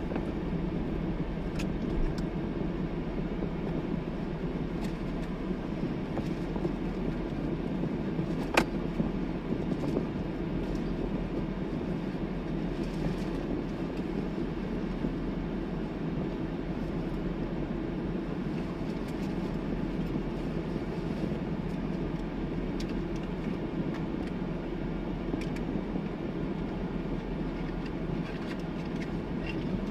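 Parked vehicle's engine idling steadily, a low even hum heard from inside the cab, with one sharp click about eight and a half seconds in.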